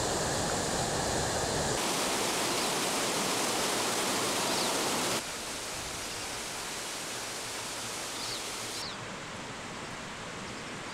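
Mountain waterfalls rushing: a steady hiss of falling water that changes character abruptly a few times, dropping in level about five seconds in.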